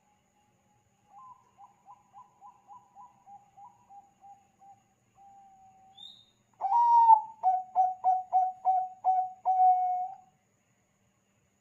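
Zebra dove (perkutut bangkok) cooing. A faint run of about ten quick, soft coo notes comes first. A loud phrase follows: a drawn-out opening note, a rapid string of short coos, and a longer held note at the end.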